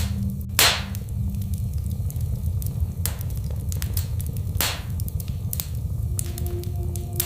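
Wood fire crackling in a fireplace: a steady low rumble with scattered sharp pops and snaps, two of them louder, about half a second in and about four and a half seconds in.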